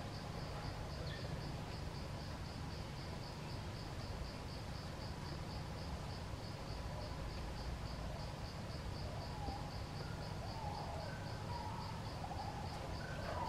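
Insects chirping in a steady, evenly pulsing high trill, over a low background rumble.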